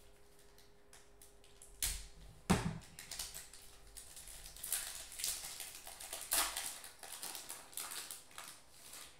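Foil trading-card pack being torn open, the wrapper crinkling and crackling as it is pulled apart, with two sharp knocks about two seconds in.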